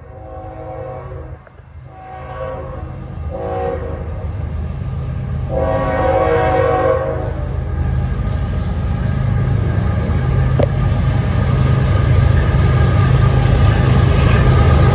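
Union Pacific diesel freight locomotives approaching, the lead unit sounding its horn in four blasts with the third short, the long-long-short-long grade-crossing signal. After the horn, the engines' low rumble and the rail noise of the train grow steadily louder as it draws close.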